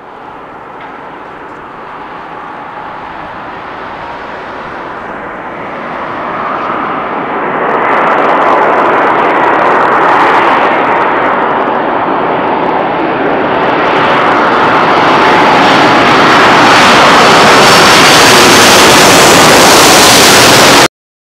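Airbus A330 MRTT tanker's twin jet engines roaring steadily and growing louder over about twenty seconds as the aircraft draws near, the hiss rising higher as it builds; the sound cuts off abruptly near the end.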